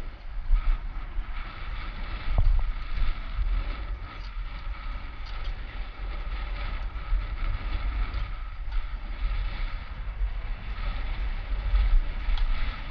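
Wind noise buffeting an action camera's microphone while riding a bicycle along a paved street. The sound is a low, gusty rumble that rises and falls in strength.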